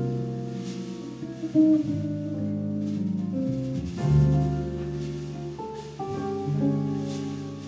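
Jazz quartet playing live: archtop electric guitar with keyboard, upright double bass and drum kit, in long held notes over a walking low bass line with light cymbal strokes.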